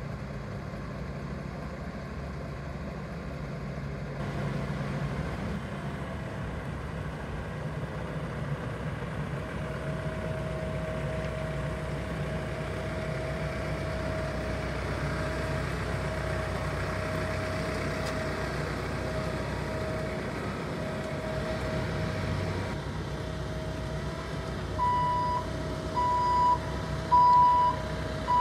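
A Case backhoe loader's diesel engine runs steadily as the machine drives, with a steady whine joining about a third of the way in. Near the end, its reversing alarm beeps about once a second.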